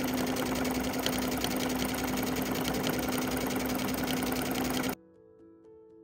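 Electric sewing machine stitching steadily at speed: a steady motor hum under fast, even needle strokes. It cuts off suddenly about five seconds in, leaving faint background music.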